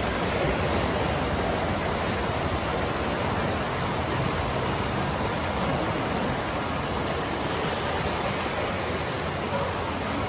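Steady rolling rumble and hiss of a long O gauge model freight train, its loaded coal hopper cars running past close by on the track.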